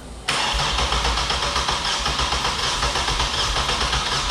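Turbocharged 4.2-litre inline-six of a Chevrolet Trailblazer cranked over on its first start attempt: a loud, steady engine noise that begins abruptly a moment in and holds at an even level.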